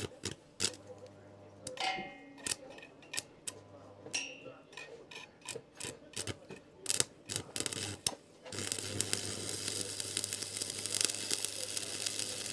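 Scattered metal clicks and clinks, then, about eight and a half seconds in, the steady crackling hiss of arc welding starts and keeps going.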